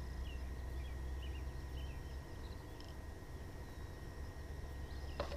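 Quiet outdoor ambience: a steady low rumble of wind on the microphone, with small faint chirps scattered through it and a couple of sharp clicks about five seconds in.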